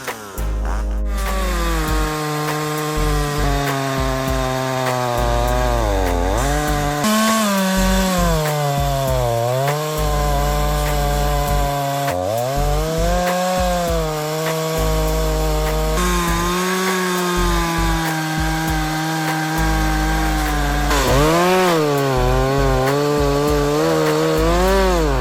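Tanaka TCS51EAP two-stroke chainsaw cutting through wood. The engine pitch sags several times as the chain bites under load, then climbs back up between cuts.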